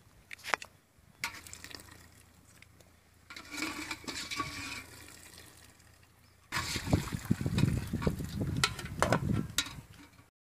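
A perforated metal skimmer scoops boiled chicken out of its cooking liquid and tips it into an aluminium bowl: liquid splashing and dripping, with clinks of metal on metal. The loudest, busiest splashing comes in the second half.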